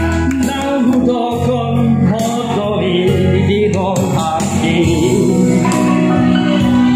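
A man singing a Batak song into a microphone, holding long, wavering notes over a steady instrumental backing.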